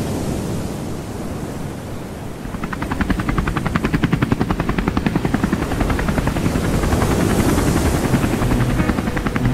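Rushing noise, then from about two and a half seconds in a fast, even rotor chop like a helicopter's that grows louder and keeps going.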